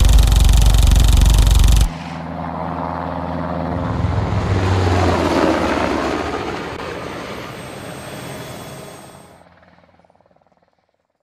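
Helicopter flying low overhead, loud at first, then dropping off sharply about two seconds in. Its rotor noise swells once more and fades away as it moves off, dying out near the end.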